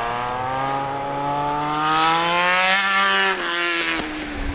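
Racing motorcycle engine accelerating hard past, its note climbing steadily for about three seconds, then dropping sharply and fading.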